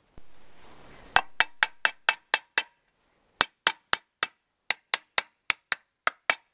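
Small hammer tapping on the metal starter cover of a Ural-2 chainsaw to seat it on the engine: quick light taps, about four a second, in three runs with short pauses. A brief rustling hiss comes just before the first tap.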